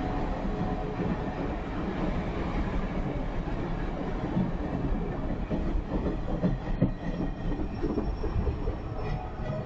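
Steel wheels of heritage passenger railcars rolling past on the track, with clacks over the rail joints, as the last cars of the train go by and move off.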